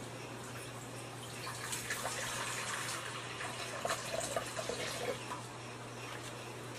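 Water running as animal water bowls are filled, louder from about two seconds in until about five seconds in.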